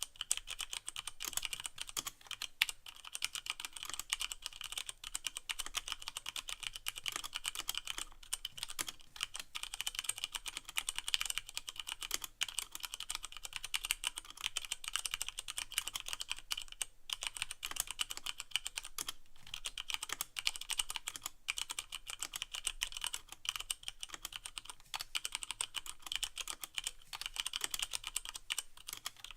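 Fast continuous typing on a Leopold FC660M mechanical keyboard with Cherry MX Brown switches and no O-rings, a dense run of key clicks with a few brief pauses.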